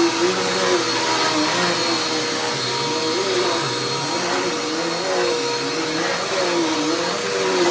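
Dirt Devil Endura Express upright vacuum cleaner running steadily: a continuous motor whine and airflow hiss, with a lower tone that wavers up and down about once a second.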